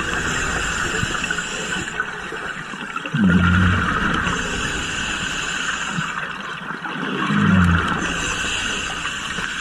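Underwater breathing of a compressor (hookah) diver through a regulator: a hiss on each breath in and a short low rumble of bubbles on each breath out, one cycle about every four seconds.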